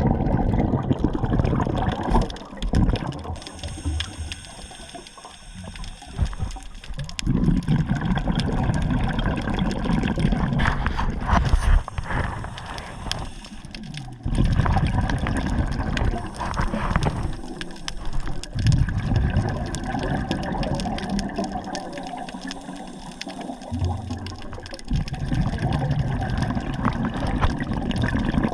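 Water sloshing and gurgling in irregular surges, with low rumbling swells that rise and fall every few seconds.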